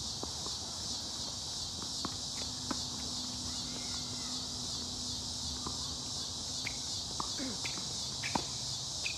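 Steady, high-pitched chorus of insects, with a few sharp pops of a tennis ball coming off racket strings and bouncing on the hard court. The loudest pop comes near the end, from a forehand.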